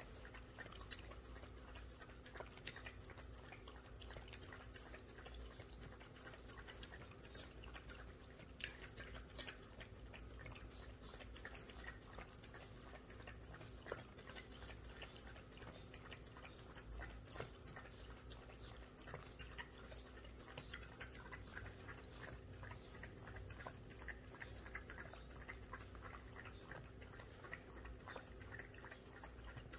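A puppy lapping water from an electric pet water fountain: a faint, quick run of small wet laps and clicks. A steady low hum and a light trickle of water run underneath.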